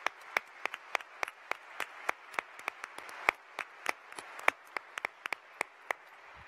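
Audience applauding, with a few sharp claps close to the microphone standing out at about three a second; the applause dies away near the end.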